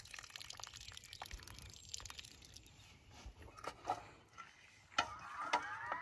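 Faint crunching and clicking of footsteps in slide sandals on dry, cut grass, with a few sharper knocks. About five seconds in comes a short rising whine.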